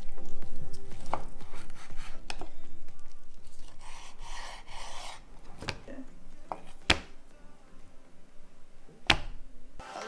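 Kitchen knife sawing through a thick slab of bacon on a wooden cutting board: a rasping cut through the meat and rind, and about two sharp clicks in the later half as the blade snaps through and meets the board.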